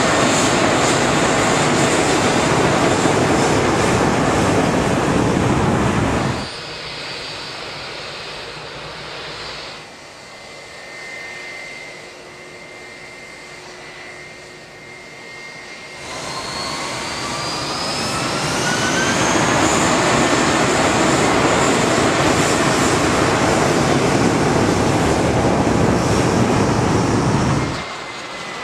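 Jet airliner engines in three cut-together stretches. First, a loud, even roar of jet blast for about six seconds. Next, a quieter, steady engine whine from an Airbus A320 on the runway. Last, a whine rising in pitch as the roar builds back up to full loudness, which stops abruptly just before the end.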